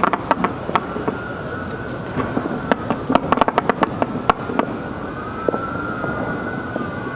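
Fireworks going off in a rapid series of sharp pops and crackles, thickest in the middle, over a steady background noise. A faint high tone rises and falls slowly behind them.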